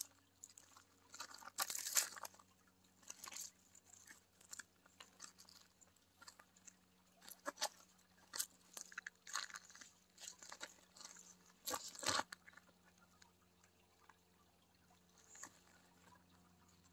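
Footsteps crunching on loose river gravel and cobbles, irregular steps with small stones knocking together, the crunches thinning out in the last few seconds.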